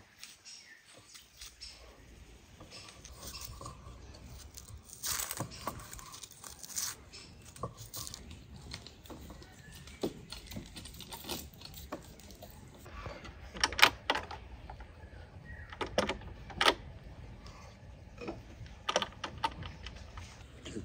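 Scattered clinks, knocks and taps of knives, bowls and plates on a wooden table during food preparation, with a few sharp metallic clinks a little past the middle.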